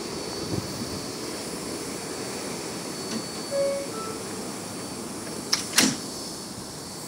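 An R188 subway train standing at the platform, its equipment humming steadily with a thin high whine, and a couple of sharp knocks near the end.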